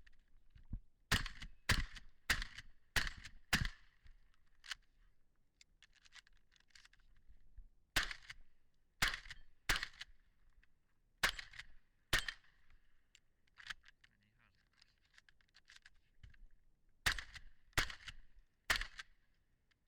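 Benelli Supernova pump-action shotgun firing a string of shots: five in quick succession about half a second apart, then groups of three, two and three separated by pauses. Fainter clacks of the action being worked and shells being loaded come between the shots.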